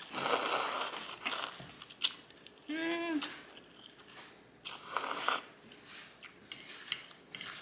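Close-up eating sounds from a bowl of instant ramen noodles: wet chewing and smacking clicks, with two longer slurps near the start and about five seconds in. A short hummed 'mm' comes about three seconds in.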